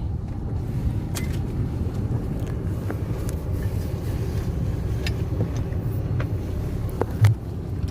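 Steady low rumble of a car on the move, heard from inside the cabin, with a few small clicks and one louder knock about seven seconds in.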